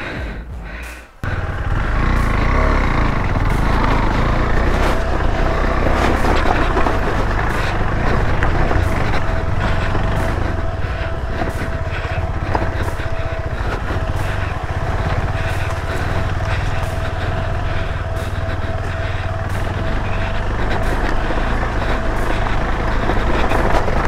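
A motorcycle running steadily under way, its engine mixed with wind and road noise, starting suddenly about a second in. A thin steady whine runs through the middle stretch.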